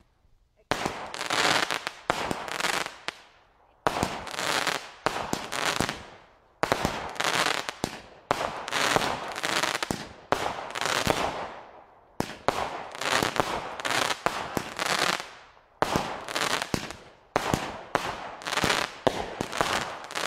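A 'Crazy' firework barrage cake from the Supreme 6 pack firing volley after volley: each volley a cluster of sharp, loud reports tailing off into crackle, repeating every two to three seconds from about a second in.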